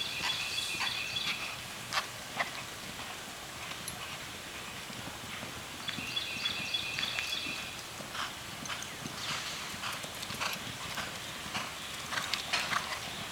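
Hoofbeats of two galloping horses on soft dirt ground, growing louder as they come close, loudest near the end. A high, steady-pitched call sounds twice, once at the start and once about six seconds in.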